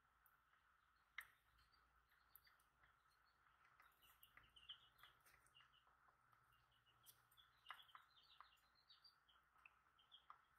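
Near silence, with faint high chirping throughout and a few soft clicks as a plastic spatula packs ointment into a small plastic jar; the loudest click comes about a second in.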